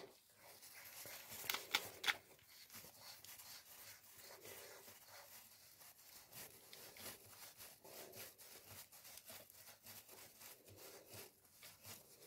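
Faint rubbing and small clicks of a hand screwing a Peugeot XD diesel engine's oil pump thrust plug back in, with a few louder ticks about one and a half to two seconds in.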